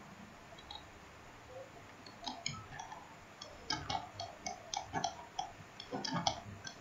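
A run of quick, irregular computer-mouse clicks, starting about two seconds in and coming thickest in the second half.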